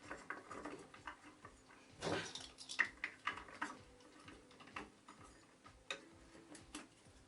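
Faint clicks, taps and scrapes of hand work on a vacuum cleaner motor as wooden blocks are clamped against the armature with a C-clamp, with a brief louder scrape about two seconds in.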